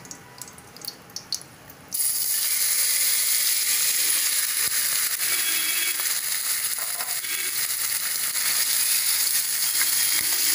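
Hot oil in a wok crackling lightly, then about two seconds in a batch of marinated chicken pieces goes in and the oil breaks into a loud, steady sizzle of shallow frying. A wooden spatula starts stirring the chicken near the end.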